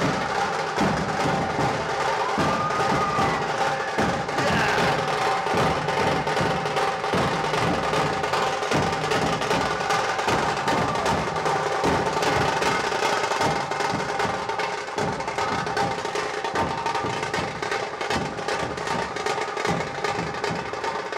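Music with a steady drum beat and sustained held tones over it.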